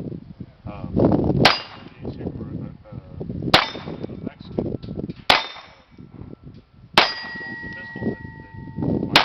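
Five gunshots about two seconds apart, each answered by the clang of a steel target plate. After the fourth hit the plate rings on in a steady tone for about two seconds.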